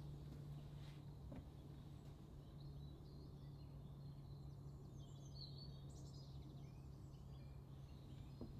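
Near silence: quiet room tone with a steady low hum, and faint bird chirps through the middle.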